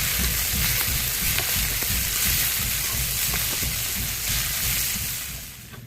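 Garlic, whole spices, curry leaves and onion greens sizzling and crackling in hot oil in a pan, a loud spluttering fry with irregular low knocks underneath. It fades out just before the end.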